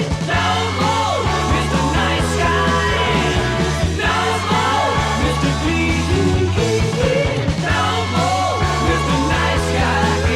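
Rock music with a steady bass line and sung or lead-guitar melody lines.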